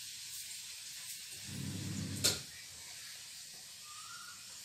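Steady faint hiss, with a short low rumble that ends in a sharp click a little over two seconds in.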